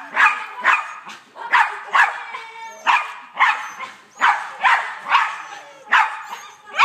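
Small dog barking over and over, about two barks a second, while running an agility course.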